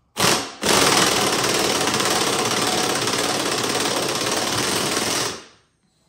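Impact wrench hammering as it drives a BeadBuster bead breaker's screw down to push an ATV tire's bead off the rim: a short burst, then a steady run of about four and a half seconds that stops about five seconds in.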